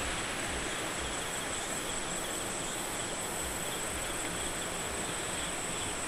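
Steady rushing of a mountain stream, with an insect's high, steady buzz running over it.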